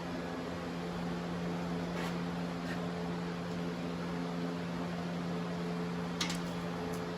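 Flux-core welder's cooling fan running with a steady hum, with a few faint light clicks, the clearest a little after six seconds in.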